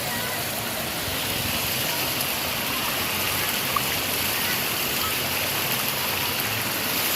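Stream water rushing in a steady, even flow.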